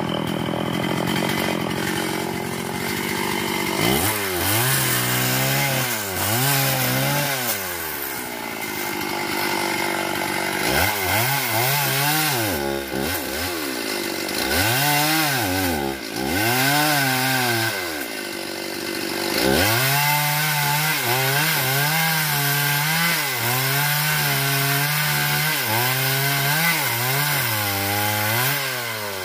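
STIHL MS381 two-stroke chainsaw cutting through a fallen sengon log. The engine's pitch rises and drops over and over, about once a second, with a steadier stretch partway through.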